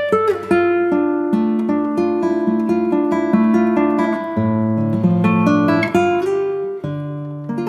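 Background music on acoustic guitar: a run of plucked notes in quick succession.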